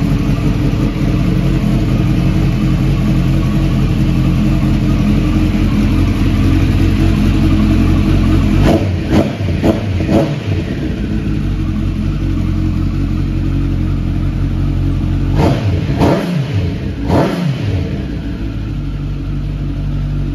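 2008 Kawasaki ZX-10R's inline-four engine idling through an aftermarket slip-on exhaust, blipped three times in quick succession about halfway through and three more times about three-quarters of the way through.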